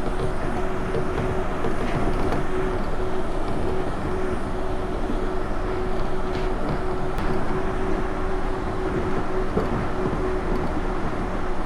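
Running noise inside a moving elevated commuter train car: a steady rumble and hiss with a constant hum held throughout.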